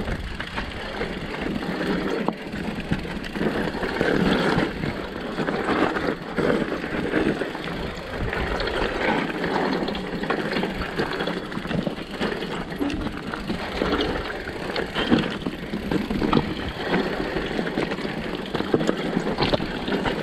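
Mountain bike rolling over a rough, stony trail: a steady rush of tyre noise with frequent knocks and rattles as the bike jolts over stones.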